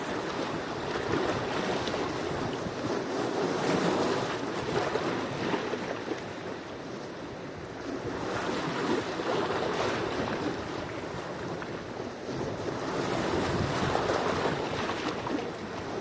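Sea waves breaking and washing on the shore, swelling and easing in slow surges: two louder surges, a few seconds in and again near the end, with a quieter lull between.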